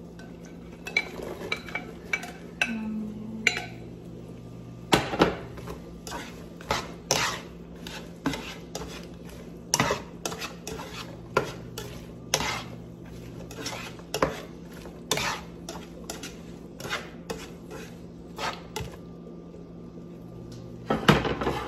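Spatula stirring green beans and onions in a nonstick sauté pan, knocking and scraping against the pan in a run of irregular clatters, one or two a second.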